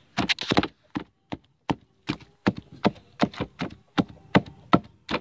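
Wooden pole pounding garlic cloves, eggshells and food scraps into a mash in a plastic bucket: a quick, slightly uneven run of thuds, about three or four a second.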